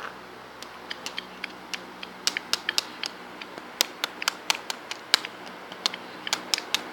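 A run of quick, irregular light clicks and taps, like small hard objects being handled or tapped, coming more often and louder from about two seconds in.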